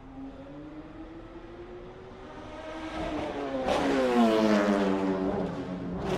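Le Mans race car engine approaching and passing close by, loudest about four seconds in, its note sliding down in pitch as it goes past and slows for the corner. A brief sharp burst comes near the end.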